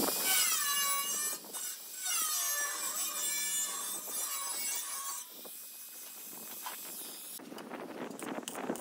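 Angle grinder working the edge of a sheet-steel box, its high whine dipping in pitch again and again as the disc bites into the metal, stopping about five seconds in. Near the end, scraping and knocking as the metal box is moved about.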